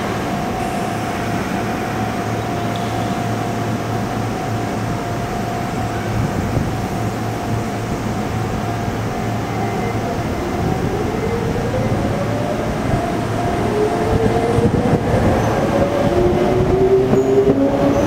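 Sotetsu New 7000 series electric train standing at the platform with a steady equipment hum, then pulling away about ten seconds in. As it picks up speed, its VVVF inverter and traction motors give a whine in several tones, each rising in pitch, over the rumble of the cars.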